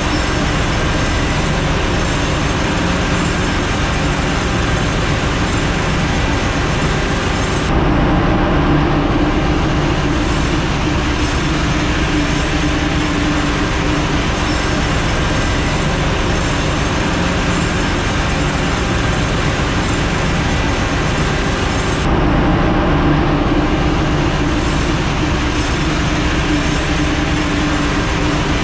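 Loud, steady drone of a ship's engine-room machinery, a constant din with a strong low hum, shifting abruptly twice. The main engine is opened up for the work, so the running plant is auxiliary machinery such as generators and ventilation.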